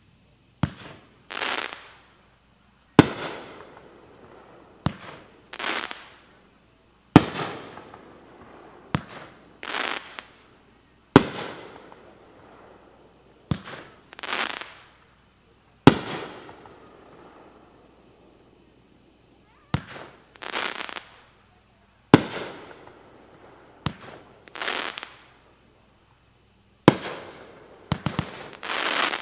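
Magnus Fireworks "Own It" nine-shot firework cake firing shot by shot, a sharp bang with an echoing tail and a hissing, crackling burst every two to four seconds.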